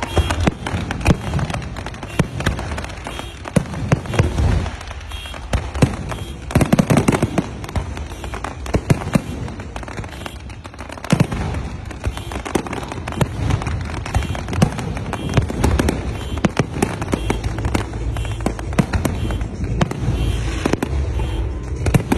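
Aerial fireworks display: a dense, unbroken run of shell bursts, sharp bangs and crackling, many overlapping.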